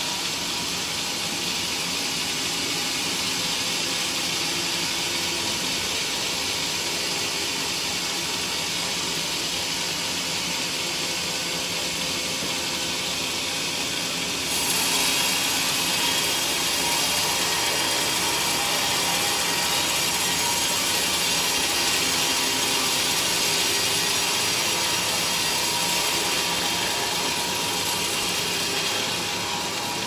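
Large band sawmill cutting a teak log, its blade running through the wood with a steady, dense rushing noise. About halfway through it becomes louder and more hissing, and then holds steady.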